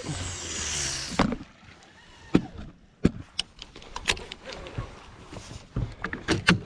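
Handling noise around a fishing rod and its conventional reel: a rushing hiss in the first second, then scattered sharp clicks and knocks at uneven intervals.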